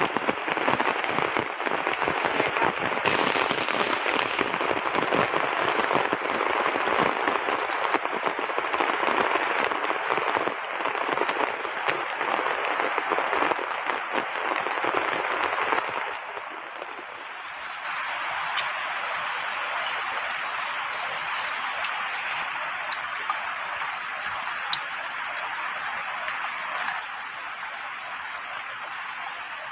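Heavy rain falling hard, a dense patter of drops; about halfway through it drops to a quieter, steadier hiss.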